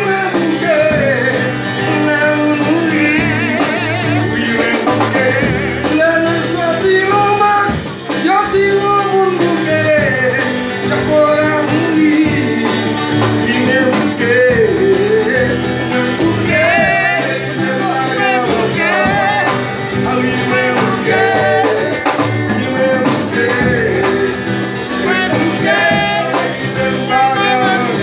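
Live Haitian compas song: male voices singing over a strummed acoustic guitar, the singing carrying on throughout.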